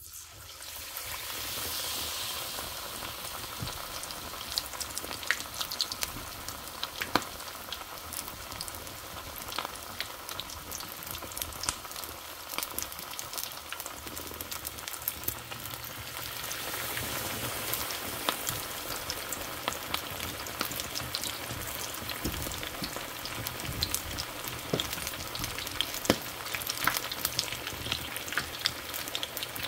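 Chicken wings frying in hot oil: a steady sizzle full of sharp crackles and pops, swelling up about a second in.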